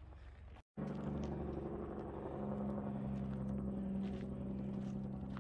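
A steady low engine drone with a few held tones, growing a little louder about two seconds in. It follows a short break in the sound about a second in.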